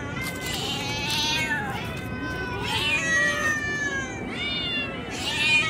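Several hungry stray cats meowing loudly at once, begging for food. Their overlapping calls rise and fall throughout, and the loudest comes near the end.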